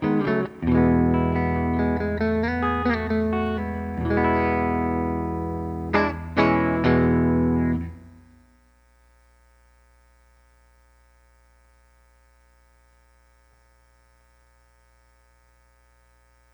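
Electric guitar played through a Line 6 POD HD300 amp model, recorded direct: strummed chords and single notes for about eight seconds, the last chord left to ring and fade out. After that only a faint, steady hum from the unit remains.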